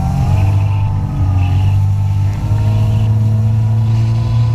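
Jet ski engine running under way, loud and steady, its pitch dipping slightly at the start and stepping up a little about halfway through.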